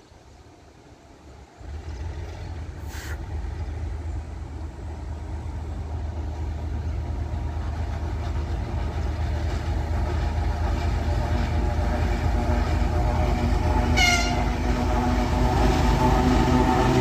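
DM62 diesel locomotive's two-stroke V12 engine running with a deep steady drone as it approaches hauling a train. The drone comes in suddenly about a second and a half in and grows steadily louder. A short high whistle toot sounds near the end.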